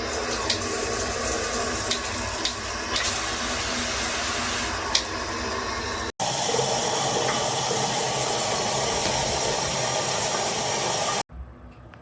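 Water spraying from a hand-held shower head in a steady hiss, with a few light taps in the first half. About six seconds in it cuts abruptly to a brighter, hissier spray, which stops short near the end.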